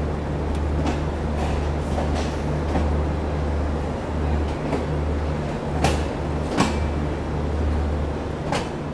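Passenger train of LHB coaches pulling slowly out of the station: a steady low rumble of the moving train, with a few sharp clicks and knocks from the running gear, the clearest about six seconds in and near the end.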